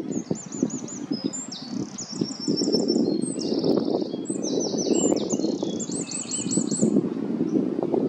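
A small songbird singing one long, high, fast song of rapid repeated notes and trills, lasting about seven seconds, over a low rushing noise.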